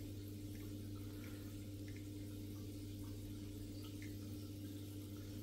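Steady low hum of aquarium equipment running in the cabinet, with a few faint, scattered drip-like ticks of water.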